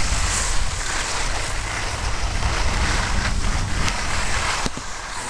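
Wind buffeting the microphone of a camera carried by a moving skier, a low rumble over the steady hiss of skis sliding on packed snow.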